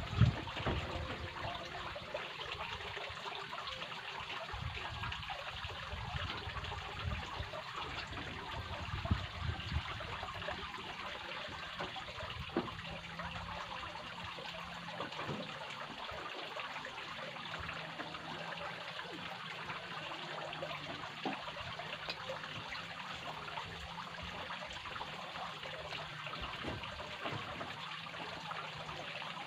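Steady trickle of running water, with a few low thumps and rumbles in the first ten seconds.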